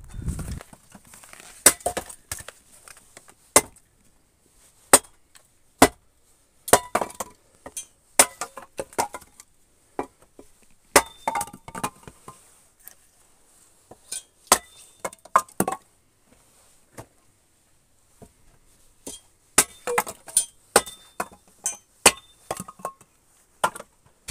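Firewood being split into kindling with a hatchet on a chopping block: sharp, irregular chops about a second apart, some followed by a short clatter of split sticks.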